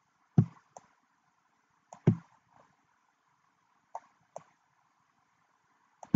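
Computer mouse buttons clicking in pairs, a press and a release, about every two seconds, four times. Each click is sharp with a dull knock to it.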